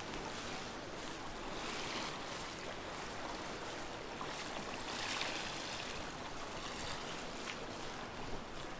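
Small sea waves washing onto the shore: a steady wash of noise that swells about two seconds in and again about five seconds in.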